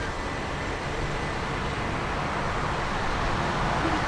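Boeing 787-9's Rolls-Royce Trent 1000 turbofans at takeoff thrust, a steady rushing jet noise that slowly grows louder as the airliner rotates and lifts off.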